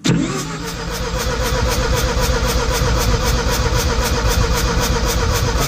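Mazda RX-7 FC's 13B rotary engine cranked on the starter motor with its spark plugs out for a compression test on the rear rotor: a steady starter whine with an even pulse about four times a second, starting and stopping abruptly. The test reads really poor compression across all rotor faces, which the owner takes to mean the engine needs a rebuild.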